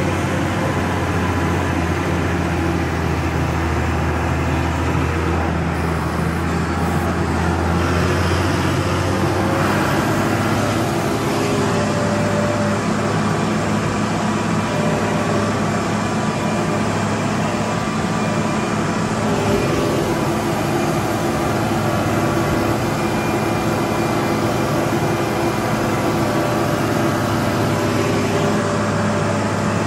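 Farm tractor's diesel engine running steadily under load as it hauls a land-levelling scraper through loose soil; the engine note shifts about ten seconds in.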